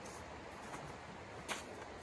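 Faint steady rush of a shallow creek flowing over stones, with a single sharp click about one and a half seconds in.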